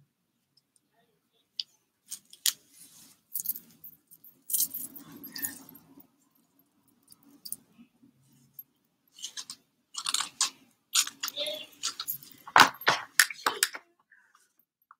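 A comb scraping through hair and hands handling the hair, with metal bangles clinking: irregular scratchy clicks and rustles in two spells, the second, in the last few seconds, louder.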